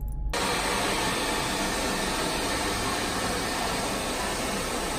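Handheld hair dryer blowing steadily during a blow-dry, setting in suddenly just after the start.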